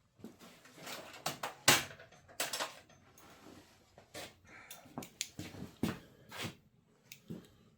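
Metal hand tools clinking and rattling in a series of irregular knocks and clicks as Allen wrenches are rummaged through, with the sharpest knock about two seconds in.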